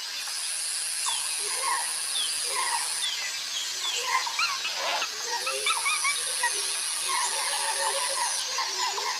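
Jungle ambience: many short, high chirping animal calls overlapping, with a steady high-pitched whine that runs for about three seconds, stops, and returns for another three.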